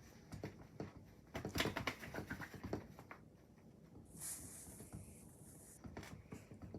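Chihuahua moving about in a small room: a quick run of scratchy clicks and pattering, then a soft rustling hiss for a couple of seconds.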